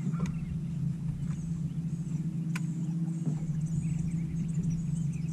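Steady low hum of a bow-mounted electric trolling motor, with small birds chirping high and faint in the background and a sharp click about two and a half seconds in.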